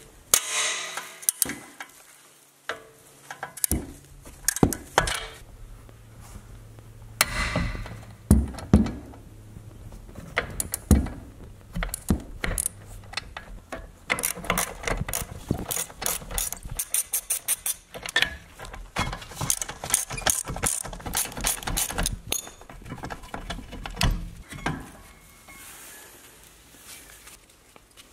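Socket ratchet clicking in quick runs as it turns the brake caliper bracket bolts, with scattered metal knocks of the tool against the brake parts.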